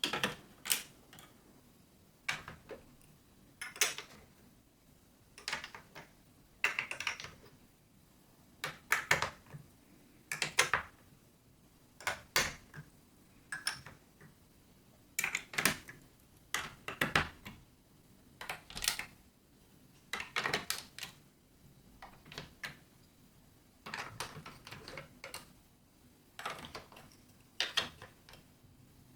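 Marbles clacking and rattling through a building-block marble run: irregular clusters of sharp clicks about every second or so.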